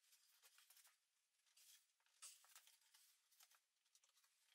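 Very faint, irregular scraping and rustling, a handful of short scratchy strokes, as hands handle wooden lid parts on the bench.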